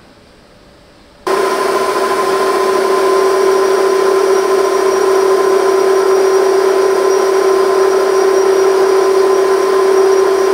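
Small metal lathe starting abruptly about a second in and running with a steady whine, its tool turning down a cast silver tube held between centres so that cutting noise mixes with the motor.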